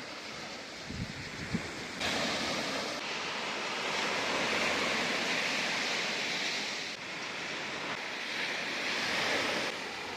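Sea waves washing on the shore, a steady hiss of surf that grows louder about two seconds in. A few low bumps of wind on the microphone about a second in.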